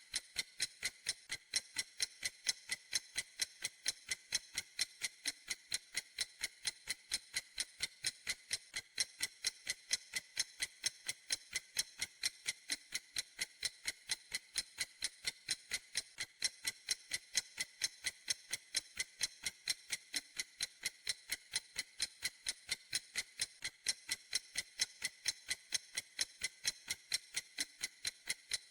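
Clock ticking steadily: even, crisp ticks, a few a second, with no change in pace or loudness.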